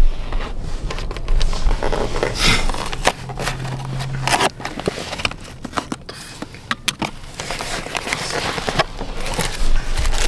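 Handling of takeout chicken containers and packaging: irregular scraping, crackling and clicking as the boxes and pieces are moved around.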